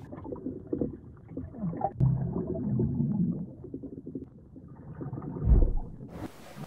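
Muffled underwater rumbling and gurgling picked up by a drop camera sinking into the ash plume of the Kavachi submarine volcano. A deep thud comes about five and a half seconds in.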